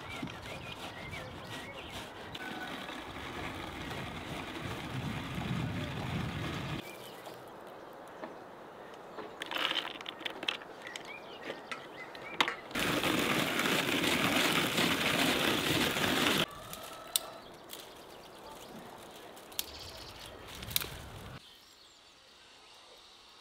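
Onions rubbed on a metal box grater, then walnuts ground in a hand-cranked nut grinder, a steady grinding rattle for about four seconds around the middle, with scattered clicks and knocks of handling around it.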